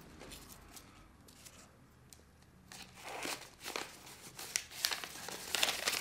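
Brown kraft paper wrapping being crumpled and torn by hand as a small parcel is unwrapped. It is quiet at first, and the crinkling and tearing start about halfway through and grow busier toward the end.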